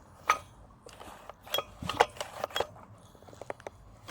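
A few sharp metallic clinks and knocks, irregularly spaced, from a Solo 670 chainsaw being handled.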